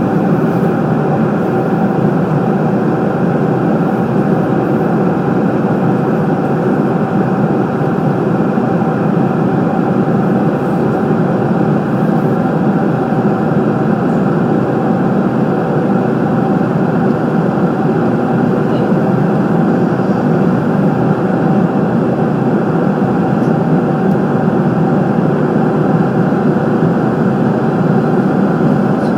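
Steady in-flight cabin noise of an airliner: engine and airflow noise heard inside the cabin, with a couple of faint steady tones running through it.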